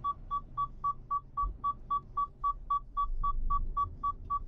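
Mercedes-Benz Actros cab's seatbelt warning chime beeping steadily, about four short high beeps a second, over the low hum of the engine: the driver's seatbelt is unfastened while the truck is moving.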